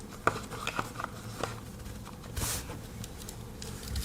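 Handling noise: a few light clicks and a short rustle as a cardboard knife box and its paperwork are handled and put away.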